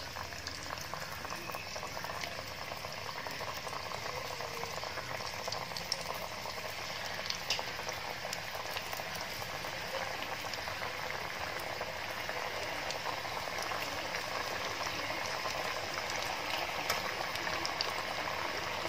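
Squares of steamed gram-flour and coriander dough (kothimbir vadi) deep-frying in hot oil in a kadhai: a steady sizzle that grows a little louder, with a few sharp pops.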